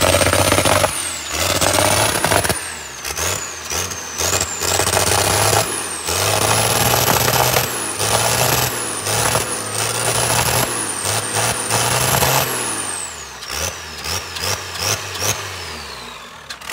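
Cummins diesel engine being revved up and down on a test run, with a high whine that climbs and falls with each rise in revs. After a series of short blips the revs drop and the engine runs down near the end.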